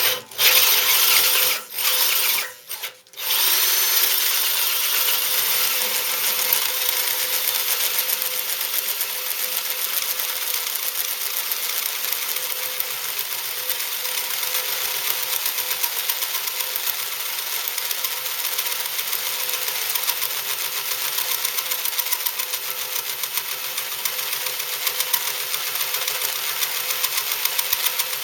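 Electric drill driving a hole saw through the thick cast-iron base of a mill, a steady grinding cut with a fast fine chatter. It stops briefly twice in the first three seconds, then runs on without a break.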